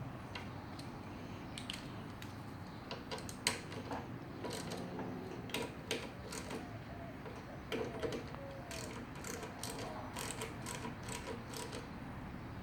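Scattered clicks and light taps of small lawnmower carburetor and fuel-system parts being handled and worked on, a few each second, with slightly louder knocks about three and a half and eight seconds in.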